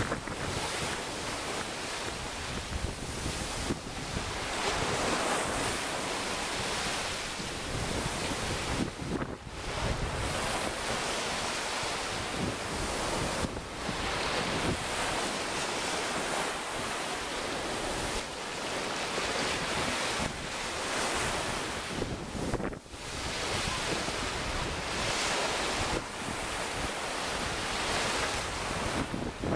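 Sea waves washing onto a sandy beach at high tide, mixed with wind buffeting the microphone. The noise surges and eases, with a few brief lulls.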